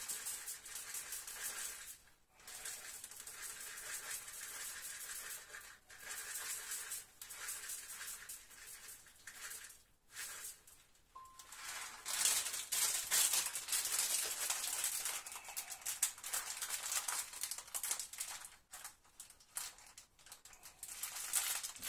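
Dry arborio risotto rice poured from its bag into a stainless-steel mixing bowl: a rattling hiss of falling grains in several pours with short pauses. It gets louder about halfway through, and near the end the bag crinkles as it is handled.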